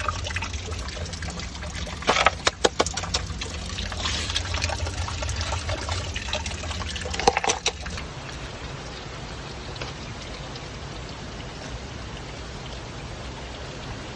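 Water running and trickling steadily, with a few sharp clicks and knocks about two seconds in and again near the middle; after that it continues more quietly.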